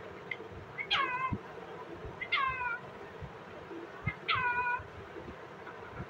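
Indian ringneck parrot giving three short calls, each falling in pitch, a second or two apart.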